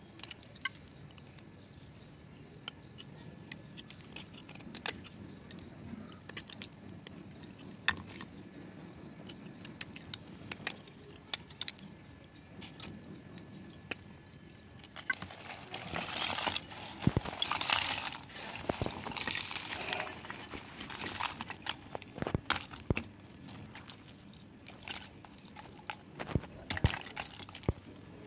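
Small knife scraping and cutting into dry slabs of multani mitti (Fuller's earth clay), with sharp clicks and crumbling as flakes break off. About halfway through comes a denser run of cracking and crunching lasting several seconds, as the clay is broken up by hand.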